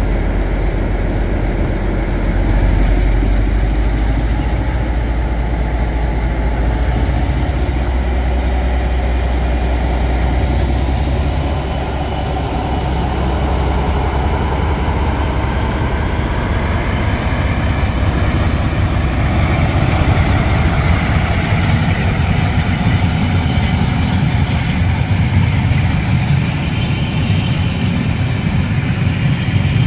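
Class 47 diesel locomotive's Sulzer V12 engine running under power as it pulls away and passes close by. From about twelve seconds in, its deep steady hum gives way to the broader rumble of the passenger coaches' wheels rolling over the rails.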